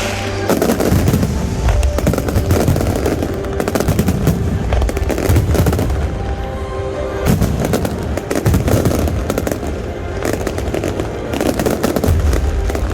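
Fireworks finale: a continuous, dense run of rapid bangs and crackling over deep booms. A steady tone sounds beneath it.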